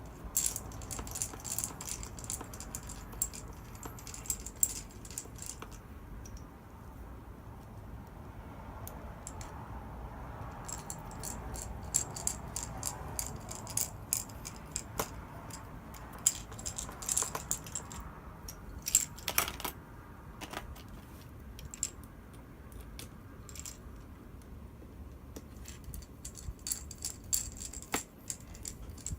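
Irregular light clicks and small metallic rattles of screws, tools and small computer parts being handled during reassembly, in clusters with short pauses between them.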